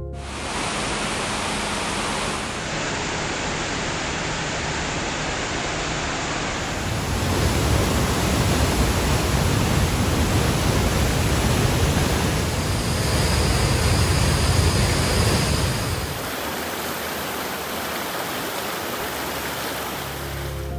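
Rushing floodwater: a steady noise of high water pouring over a dam spillway and running down a swollen stream. It changes abruptly a few times and is loudest and deepest through the middle, where the water pours over the spillway.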